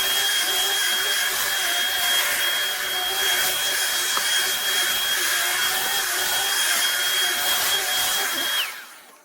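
Shark Stratos upright vacuum running on its thick-carpet setting: a steady high motor whine over rushing air. Near the end it is switched off and the whine drops in pitch as the sound dies away.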